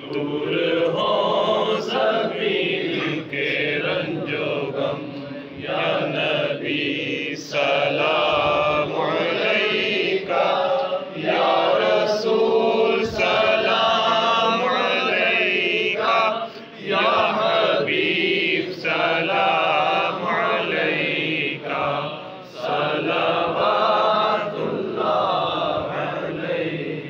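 Group of men chanting a devotional salam together in unison, unaccompanied, with short pauses between lines.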